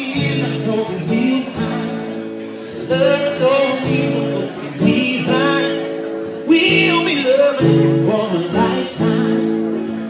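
A song: a voice singing over guitar and sustained chords.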